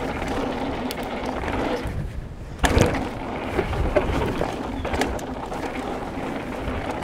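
Specialized Enduro mountain bike riding down a dirt trail, heard from an action camera: tyres rolling on dirt and wind on the microphone, with knocks and rattles from the bike over bumps. The loudest is a thump about two and a half seconds in.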